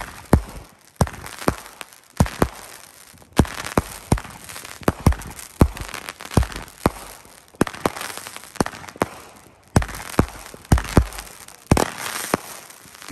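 Alpha Male 16-shot 200 g consumer fireworks cake firing: a string of sharp bangs, every half second to a second and sometimes in quick clusters, as shots lift from the tubes and break in the air.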